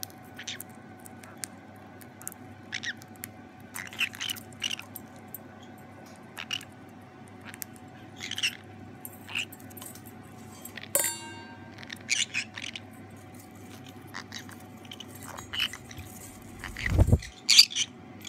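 Conures picking at and crunching popcorn in a stainless steel bowl: scattered small crackles and clicks of beaks and claws on the bowl, with one sharper ringing clink about eleven seconds in and a low thud near the end.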